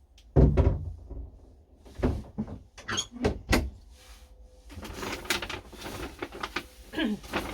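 A cupboard door bumping shut with a heavy thump, followed by a run of sharp knocks and clicks and some rustling as things are handled and stowed away.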